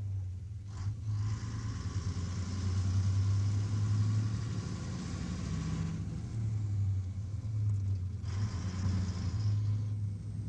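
A vehicle engine running with a steady low rumble. A hiss joins it about a second in, fades out around six seconds, and returns briefly near eight seconds.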